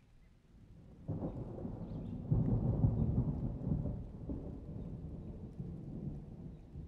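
Low rumble that starts about a second in, is loudest a second or two later, then slowly fades.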